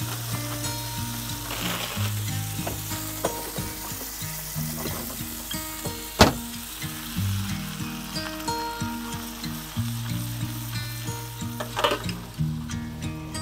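Green beans sizzling in a hot skillet on a gas stove as they are poured in and settle. A single sharp knock about six seconds in, and a metal lid clattering onto the pan near the end.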